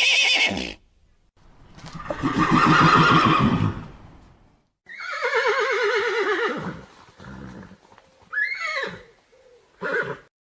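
Mustangs (feral horses) neighing in a series of calls: a long whinny with a quavering, falling pitch about five seconds in, and shorter calls near the end.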